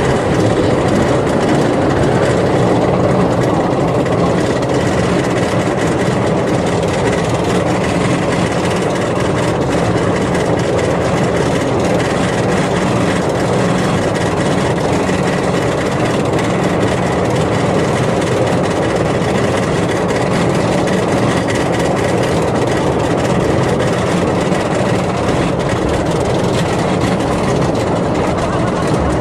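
Zadra roller coaster train climbing its chain lift hill: a steady mechanical rumble and rattle from the lift and the train running on the track.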